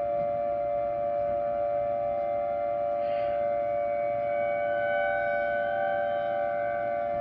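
Whelen ESC 864 electronic warning siren, played back as a pitched-down recording through speakers, holding a steady tone with no rise or fall.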